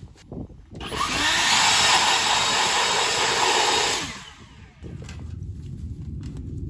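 A blast of air from a blower clearing loose hay and dust out of a hay baler: a loud, steady hiss that starts about a second in, lasts about three seconds and cuts off, leaving a low rumble.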